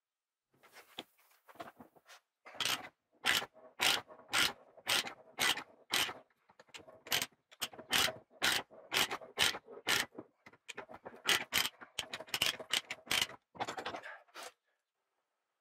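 Hand ratcheting die stock cutting a thread on a brass tube held in a vise: a steady run of short scraping strokes, about two a second, stopping near the end.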